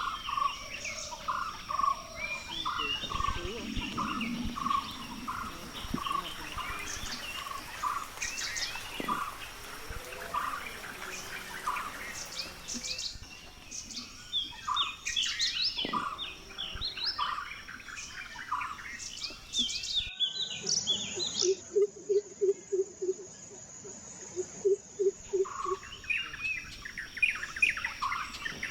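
Forest dawn-chorus-style birdsong: many birds chirping and calling together, with one bird repeating a single clear note about twice a second through the first half, and a quick run of lower, evenly spaced notes a little past the middle. A steady high-pitched insect drone runs underneath much of it.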